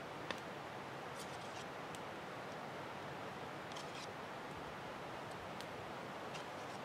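Faint, scattered light clicks and scrapes of a spoon against a small ceramic cup and the foil pan as sauce is spooned over meat, over a steady low hiss.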